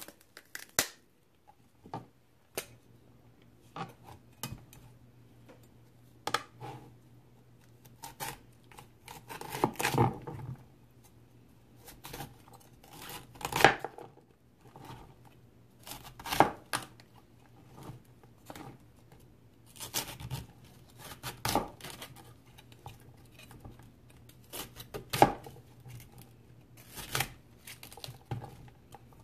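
Raw cauliflower being broken apart and cut into florets: irregular crisp snaps, cracks and tearing as leaves and stems are pulled off and a knife cuts through the stalks on a cutting board. A faint steady low hum runs underneath.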